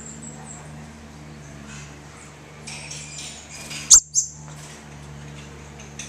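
New Holland honeyeaters at close range: faint high chirps, a brief rustle about three seconds in, then one loud, sharp, high call near four seconds, with a short high note right after it. A steady low hum runs underneath.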